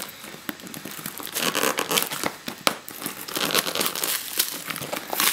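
Packing tape and plastic wrapping being pulled and torn off a cardboard parcel by hand: crinkling with sharp crackles and small rips as the tough wrapping gives way, louder after a second or so.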